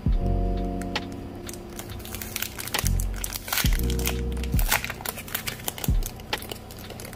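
Clear plastic sleeve crinkling and crackling in quick irregular bursts as a notepad is worked out of it by hand, over lo-fi chillhop background music with chords and a heavy bass.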